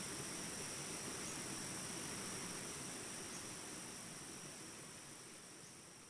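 Steady high-pitched chorus of crickets over a soft forest hiss, fading out over the second half.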